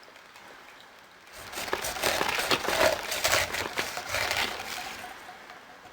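A pineapple being cut, with a crunching, crackling noise that starts about a second and a half in and fades near the end.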